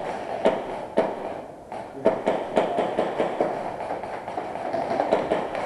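Airsoft pistols firing in an exchange of shots: sharp cracks at irregular intervals, several a second, the loudest about two seconds in.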